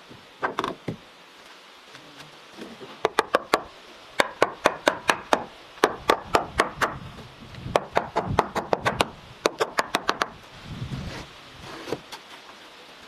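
Hammer blows, quick and sharp, coming in runs of about four to seven strikes at roughly five a second with short pauses between runs, as when nailing or driving into wood.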